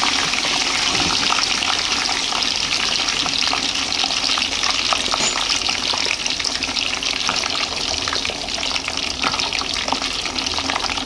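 Giant gourami frying in hot oil until crisp: a steady sizzle with many small crackles.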